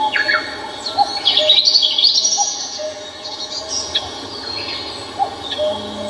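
Wild birds singing: clusters of high, quick twittering chirps and trills, busiest in the first half, over a short lower call repeated about every second and a half.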